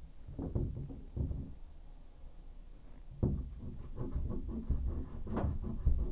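Irregular knocks, bumps and scraping of a hand and tools working on the shower valve and pipes inside the wall through the access hole in a tub/shower surround, with a few sharper knocks about three and five and a half seconds in.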